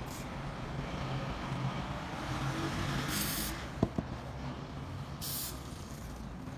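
Short bursts of hissing air, about three and five seconds in, over a steady mechanical hum, with one sharp click just before the four-second mark.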